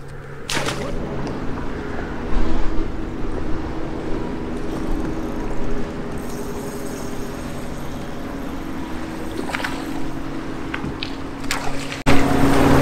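A bass boat's electric trolling motor hums steadily, with wind noise and a few brief knocks. The hum gets louder near the end.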